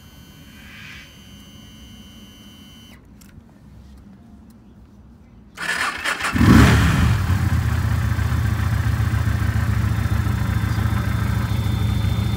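Lifan Lycan 250 EFI cruiser's V-twin engine being started: about five and a half seconds in the starter cranks briefly and the engine catches, revs up once, then settles into a steady idle.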